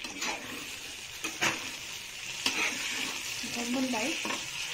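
Vegetables sizzling in hot oil in a frying pan while a spatula stirs them. A few sharp knocks and scrapes of the spatula against the pan stand out, the loudest about a second and a half and two and a half seconds in.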